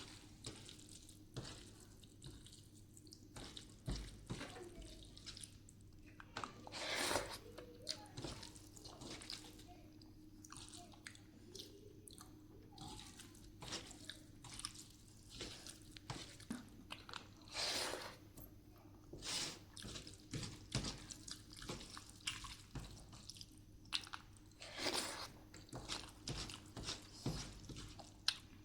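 Close-up eating sounds: chewing rice, dal and aloo chokha, with frequent small wet mouth clicks and smacks and a few longer, louder noisy sounds. A faint steady low hum sits underneath.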